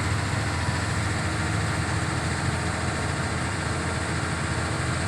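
Heavy diesel engine of earthmoving equipment running steadily with a low, even rumble.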